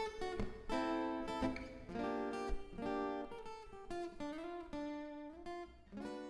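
Background music: strummed acoustic guitar chords changing about once a second.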